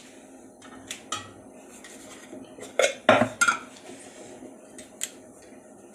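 Steel kitchen utensils and vessels clinking and clattering: a couple of light knocks about a second in, a loud cluster of clanks around three seconds in, and one more near the end.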